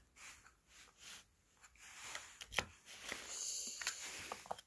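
Light handling noise from rough ammolite pieces being moved in a clear plastic compartment box: a few sharp clicks of stone on plastic, the loudest about halfway, over a soft rustle in the second half.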